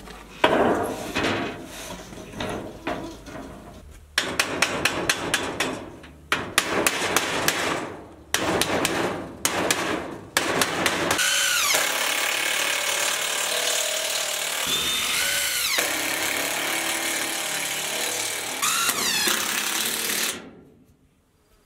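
Runs of hammer strikes on a sheet-steel roofing panel, followed by a cordless impact driver running steadily for about nine seconds, driving a screw through the metal roofing. It stops just before the end.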